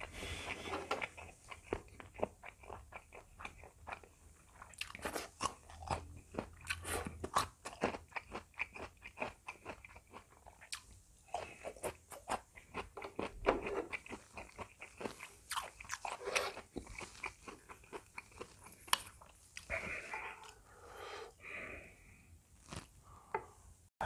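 A person chewing a mouthful of food close to the microphone: a dense, irregular run of short chewing clicks with a few brief pauses.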